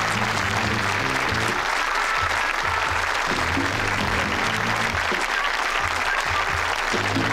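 Studio audience applause over the show's closing theme music: steady clapping with low instrumental notes moving in steps beneath it.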